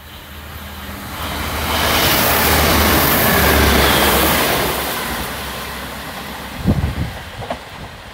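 Electric multiple-unit passenger train passing along the platform at speed. Wheel and rail noise with a low hum swells over about two seconds, holds, then fades, with a faint falling whine as it goes by. A few sharp knocks near the end.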